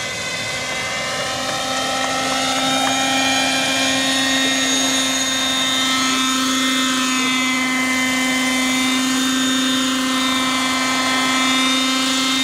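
Radio-controlled Hirobo Jetranger model helicopter's glow-fuel engine and rotors running at a steady high pitch, a constant buzzing whine, growing a little louder about two seconds in.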